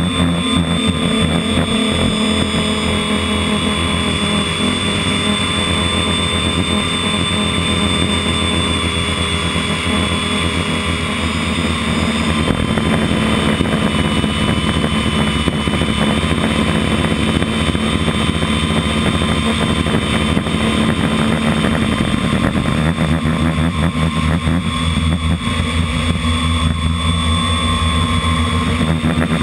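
FPV model aircraft's motor and propeller running steadily, heard through the aircraft's onboard camera, with a constant high whine over a steady rushing hum.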